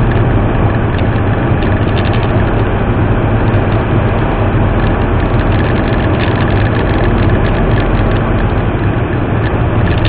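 Steady road and engine noise inside a Ford EcoSport's cabin as it cruises on a highway at about 110–120 km/h.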